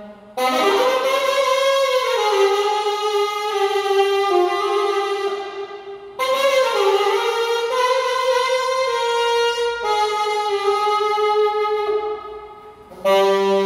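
Alto saxophone playing slow melodic phrases of long held notes, with short breath pauses about six seconds in and again near the end, where each phrase dies away before the next begins.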